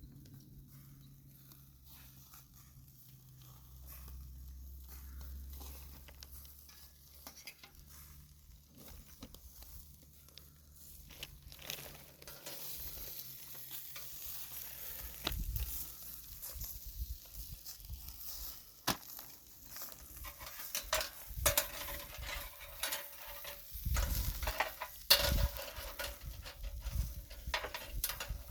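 Liver skewers sizzling over a fire, with scattered crackles and knocks. It is faint at first and grows louder from about halfway.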